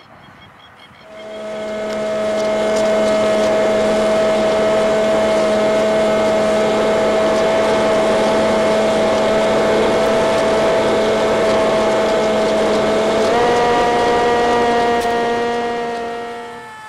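Multiplex Easy Star's electric pusher motor and propeller running with a steady high whine over a rush of air noise. It steps up slightly in pitch about thirteen seconds in and fades in at the start and out near the end.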